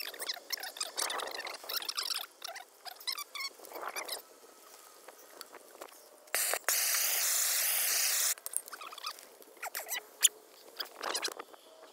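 Squeaks, rubs and clicks of gloved hands working plastic water pipe and fittings in a trench, with a loud, steady hiss lasting about two seconds that starts and stops abruptly about six seconds in.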